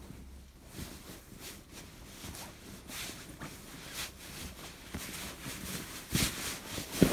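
Fabric rustling and soft thumps as cushions in cotton covers are handled and pressed on a bed, with a louder thump near the end.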